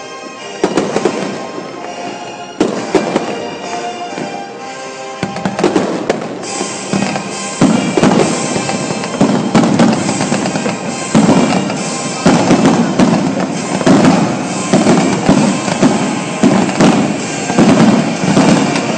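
Aerial firework shells bursting in sharp bangs and crackle, over music. A few separate bangs come first, then from about five seconds in the bursts come thick and fast and louder.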